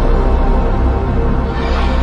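Logo-intro music: sustained tones over a heavy bass, with the high end swelling upward near the end.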